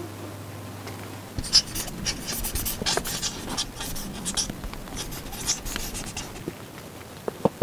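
Irregular rustling and scratching of clothing against a clip-on microphone, with small scuffs and knocks, as a person walks while carrying plant trays. It starts after about a second and a half of quiet.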